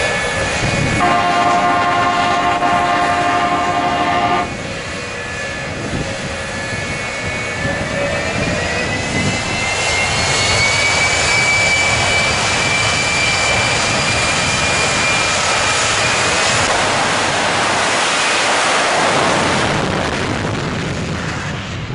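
Jet semi truck's jet engines running hard at the start line. A steady pitched tone with overtones sounds for about three seconds near the start, the engine whine climbs in pitch about eight seconds in and holds high, then the afterburners light for the launch and the sound drops away as the truck pulls off near the end.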